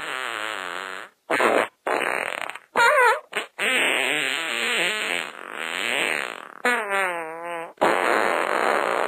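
A run of comic fart sounds, about seven in a row with short gaps between them. Some are noisy splutters and some are long with a wobbling, bending pitch.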